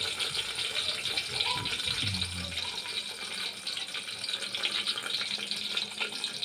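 Chilies, tomatoes, shallots and garlic frying in hot oil in a lidded pan, sizzling and crackling steadily.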